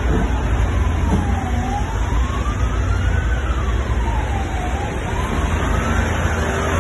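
An emergency-vehicle siren wailing, rising and falling slowly about once every three seconds, over the deep steady rumble of heavy tank-transporter trucks driving past.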